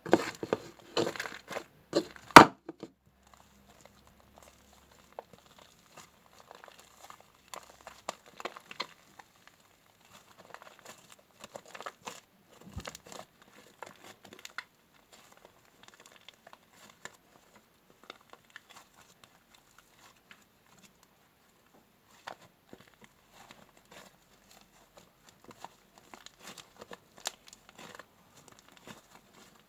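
Fluffy slime of PVA glue, shaving foam and borax water being kneaded by hand: irregular sticky crackling and clicking, loudest in the first two or three seconds, then fainter.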